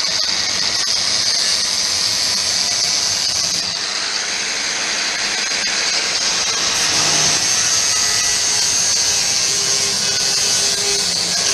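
Power tool running steadily under load, most likely an angle grinder with a flap disc sanding the paint off a steel sill to expose the spot welds; a constant high, hissing grind with no breaks.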